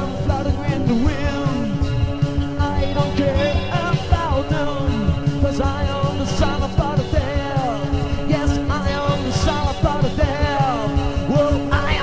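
Goth rock song playing: full band with a steady beat and a gliding melody line over it.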